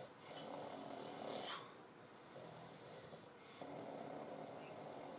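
A man snoring in his sleep: one long snore ends about a second and a half in, and the next begins about three and a half seconds in.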